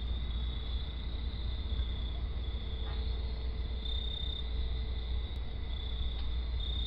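Crickets trilling in a steady, high-pitched chorus over a low, constant rumble.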